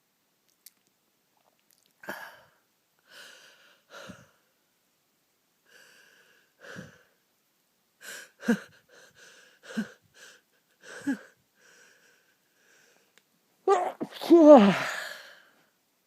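A person's sneezing fit: a series of short, soft catching breaths, then one big, loud sneeze near the end whose voice falls in pitch. The sneezing comes uncontrollably, over and over.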